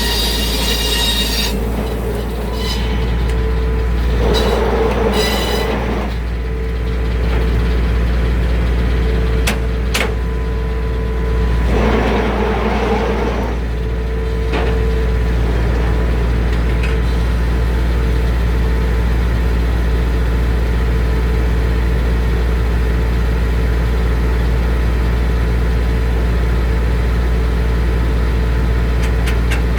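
Circular sawmill running steadily, with its engine humming and the blade spinning. A high whine cuts off about a second and a half in. Two short bursts of harsher noise come about four seconds and twelve seconds in, with a few sharp clicks in between, and then the steady running returns.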